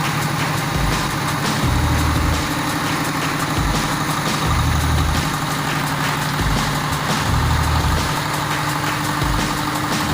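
Rice milling machinery running steadily on a trial run, a dense mechanical clatter over a low drone that swells and fades in a regular cycle about every three seconds.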